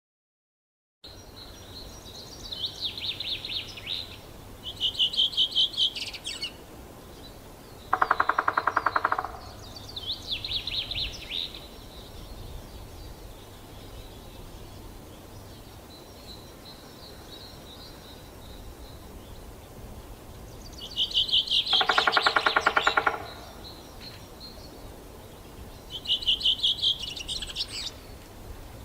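Male three-toed woodpecker drumming on a tree: two rolls of rapid, evenly spaced strokes, each about a second and a half long, the first about eight seconds in and the second about twenty-two seconds in. Small songbirds sing short high trills and phrases between and over the drumming.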